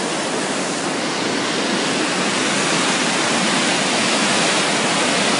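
A muddy river in full flood rushing and churning below a bridge: a steady, dense rush of water that grows slightly louder as it goes.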